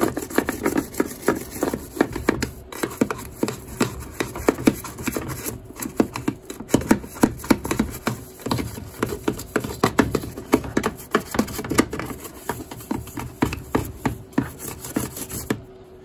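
A brush scrubbing hard inside the plastic detergent-drawer cavity of a washing machine, rapid irregular back-and-forth strokes of bristles scraping on plastic, clearing black mould. The scrubbing stops near the end.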